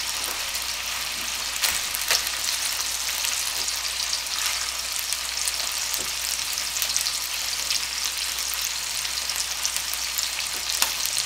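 Thin boneless chicken breasts frying in oil in a nonstick skillet: a steady high sizzle with scattered pops and crackles.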